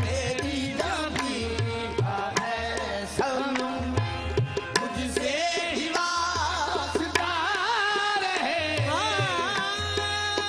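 Qawwali music: tabla strokes and harmonium under a sung melodic line. In the second half the lead voice holds long notes that slide and waver.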